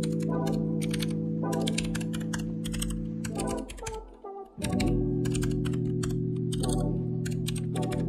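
Fast typing on a compact backlit mechanical keyboard, a steady run of key clicks, over background music with sustained chords that briefly drop out a little before halfway.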